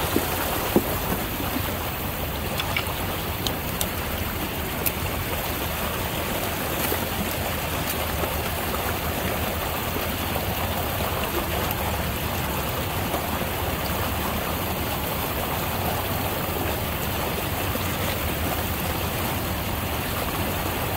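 Water rushing out of a freshly unclogged drain outlet in a fast, foaming flow: a steady rushing noise. A couple of sharp knocks come in the first second.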